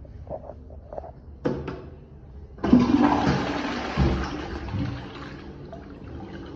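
Caroma toilet flushing. After a few soft knocks and a click, the rush of water starts suddenly almost three seconds in and is loudest for the first couple of seconds. It then eases into a steadier, quieter wash of water.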